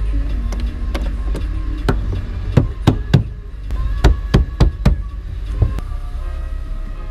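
A run of sharp knocks and clicks, a dozen or so, several in quick succession around the middle, from a plastic trim cover being pushed and clipped back into place. Under them the car's engine idles with a steady low hum, and music plays faintly from the car stereo.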